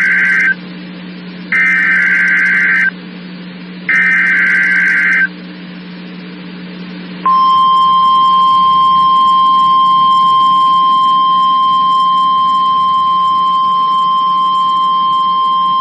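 NOAA Weather Radio SAME test. Three short bursts of warbling digital header data, each about a second and a half long with about a second between them, are followed about seven seconds in by the weather radio warning alarm tone: one steady held pitch lasting about nine seconds. A low hum from the receiver runs underneath.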